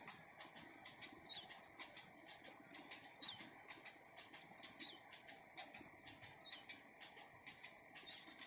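Near silence, with faint irregular clicks and a faint short chirp about every second and a half.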